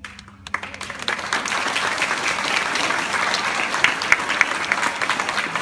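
Audience applause in a hall: it starts about half a second in, swells over the next second or two, then holds steady as a dense mass of clapping.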